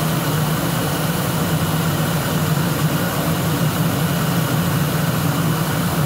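Old commercial steam boiler's burner firing, a steady roar of flame and combustion blower with a strong low hum, as it runs on its heating cycle after its one-minute purge.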